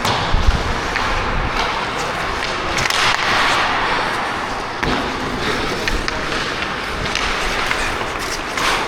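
Ice hockey play: a steady scraping hiss of skate blades on ice, with a few sharp clacks of sticks and puck.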